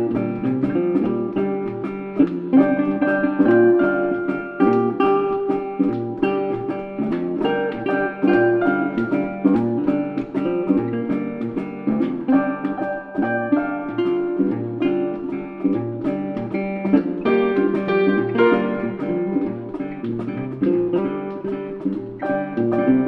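Background music: plucked acoustic guitar with a steady bass beat.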